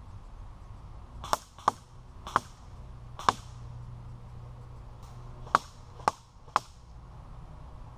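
Airsoft BBs striking a wooden board, seven sharp knocks with a brief wooden ring: two quick hits, two more, a pause, then three in a row.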